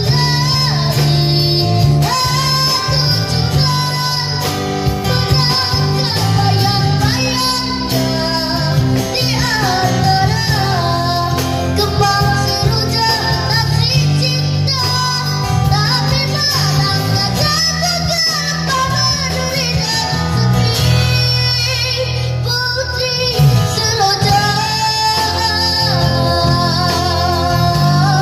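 A boy singing into a microphone with a live busking band of acoustic guitar, electric bass and drum kit, amplified through speakers; the music runs on without a break.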